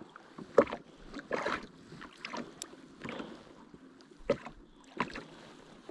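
Choppy lake water lapping and slapping against a plastic fishing kayak's hull, with a few sharp knocks scattered through it.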